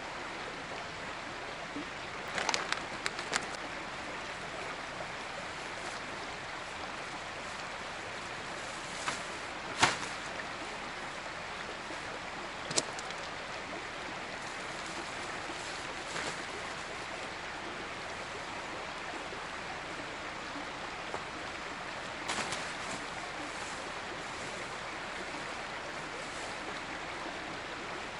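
A stream or river flowing with a steady rush of water, with a few short clicks and knocks scattered over it.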